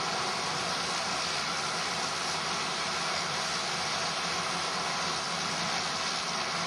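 Steady, even hiss with no distinct engine tone or rhythm, holding the same level throughout.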